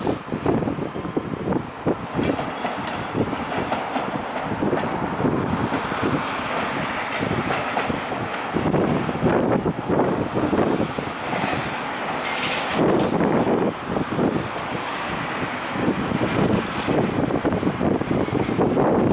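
Building demolition: masonry and rubble crashing and clattering down in a steady run of knocks and rumbling, with wind buffeting the microphone.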